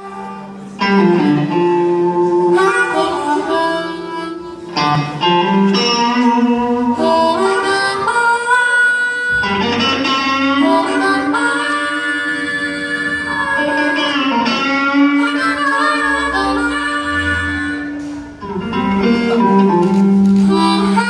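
Live band music: a harmonica played into a microphone cupped in the hands, holding long notes that step and bend in pitch, over electric guitar.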